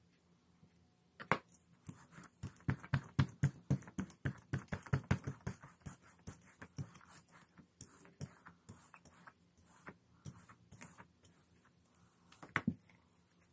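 Rubber brayer rolled back and forth over tacky acrylic block ink on a gelli plate, giving a rapid run of sticky clicks that thins out after a few seconds. A sharp double knock comes near the end.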